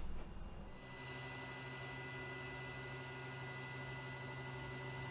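Creality Ender 3 3D printer running a leveling-squares test print: a steady low fan hum with a few thin steady high tones, after a brief soft handling noise in the first second.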